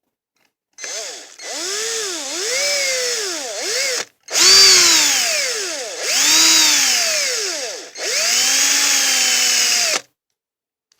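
Small power drill run in several short bursts, its motor pitch rising and falling with each squeeze of the trigger, drilling deeper into the metal of a die-cast toy car.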